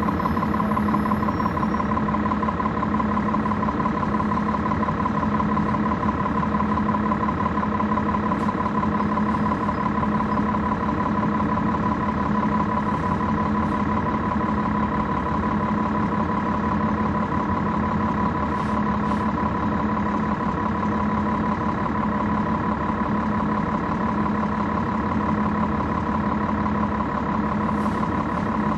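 Cummins ISL9 inline-six diesel engine of a 2011 NABI 40-SFW transit bus, heard from on board, running steadily at an unchanging pitch with the HVAC switched off. A few faint ticks come and go.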